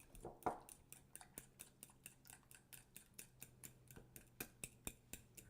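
A utensil beating the egg and softened-butter filling by hand in a mixing bowl: faint, rapid, even clicks, about five or six a second.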